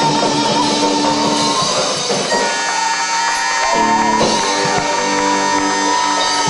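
Rock band playing live: electric guitar over drums. About two seconds in the sound thins to long held notes as the song comes to its close.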